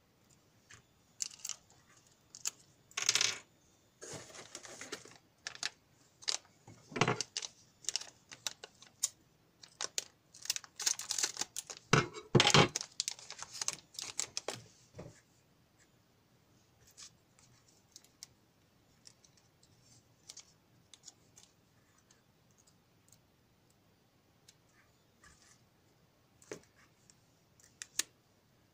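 Hands handling test leads, crocodile clips and a crumpled piece of metal foil on a workbench: irregular clicks, taps and crinkling rustles, busy for the first half and then only occasional faint clicks.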